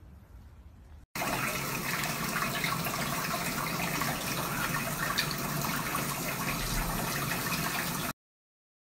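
Water running into a bathtub, a steady rushing that starts suddenly about a second in and cuts off near the end.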